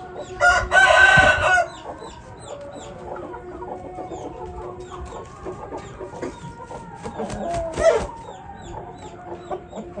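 Aseel chickens: a rooster crows once, about a second long, soon after the start, while hens cluck and short high chirps come throughout, with a brief louder call near the end.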